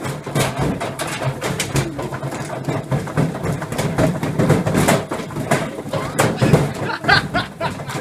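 Beko WM5140W washing machine spinning with a brick in its drum, unbalanced and jumping on a trampoline: rapid, irregular loud knocks and clatter over a steady low hum.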